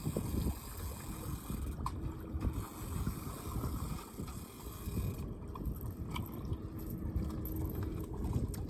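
Wind buffeting the microphone on an open fishing boat, a low irregular rumble, with water lapping against the hull. A faint steady hum comes in twice.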